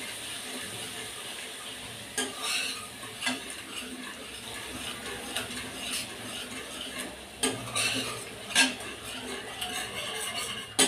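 A spatula stirring a wet yogurt and ground-spice masala in a kadai, scraping and knocking against the pan at irregular intervals over a faint steady sizzle, with a few sharper knocks.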